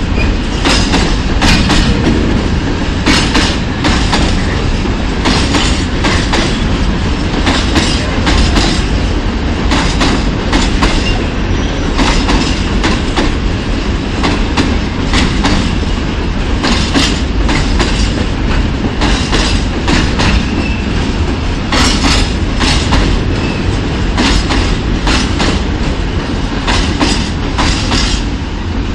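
A freight train of open gondola wagons rolling past. Its wheels clatter over the rail joints in repeated clusters of sharp clicks over a steady low rumble.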